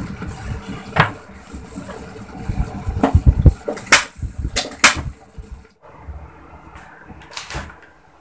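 A covered pot of food bubbling on a gas stove with a low rumble. Several sharp metal clanks come in the first half, as a steel pot is set down on the next burner, and it is quieter for the last couple of seconds.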